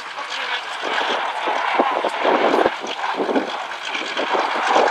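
Tiger I replica tank's engine running, with an irregular rattling clatter over it.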